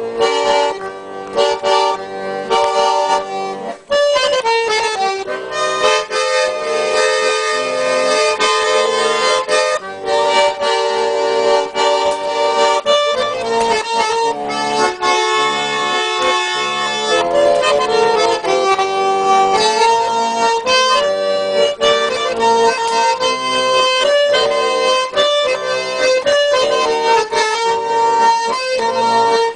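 Accordion playing an instrumental introduction, a melody over sustained chords, fuller after a short dip about four seconds in.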